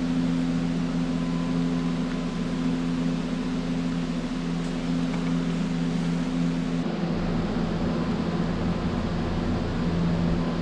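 Steady hum and rushing air of a running fan or blower, with two strong hum tones; about seven seconds in, a deeper rumble comes in.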